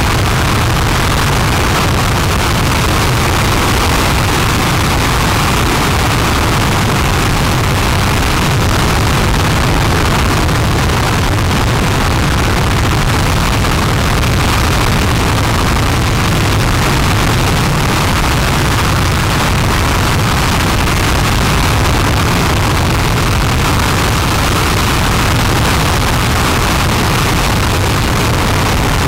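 RS-25 liquid-hydrogen/liquid-oxygen rocket engine firing at steady thrust during a ground hot-fire test: a loud, unbroken noise with a deep rumble, holding the same level throughout.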